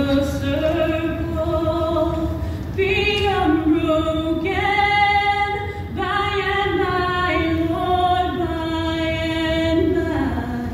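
Women's choir singing a slow line of held notes that step up and down every second or two.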